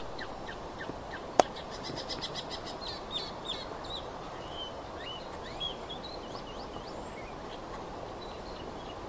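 Great woodswallow calling in a jumble of short chirps and twitters: a quick, even run of ticking notes about two seconds in, then varied rising and falling notes, over a steady background hiss. A single sharp click a little over a second in is the loudest sound.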